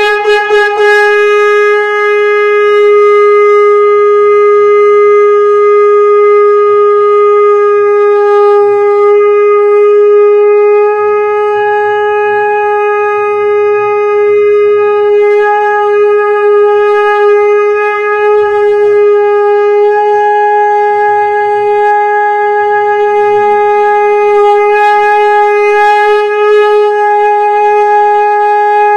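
Conch shell (shankh) blown in one long, unbroken note, a steady horn tone held without a break.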